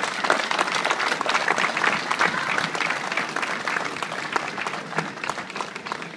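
Audience applauding, starting at once, strongest in the first couple of seconds and gradually thinning out toward the end.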